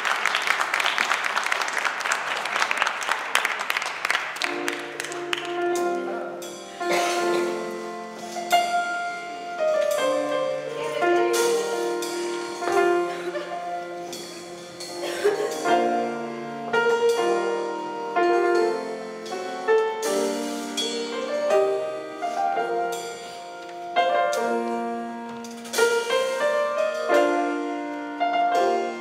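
Audience applause that dies away about four seconds in, followed by a solo piano playing slow, sustained chords with a melody line on top.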